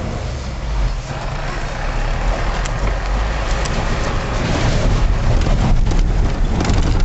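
Cabin noise of a Ford vehicle driving a rough, rocky dirt road: a low engine and drivetrain rumble under road noise, with knocks and rattles from the bumps. It grows louder toward the end.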